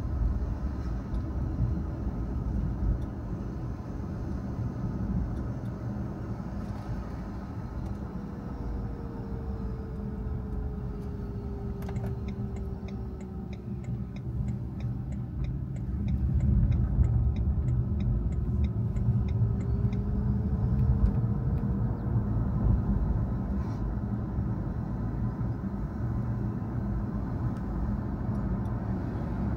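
Car driving on a road with a steady low rumble of engine and tyres. An engine tone falls as the car slows, then rises as it picks up speed, and the rumble grows louder as it does. A regular ticking about twice a second runs through the slow part.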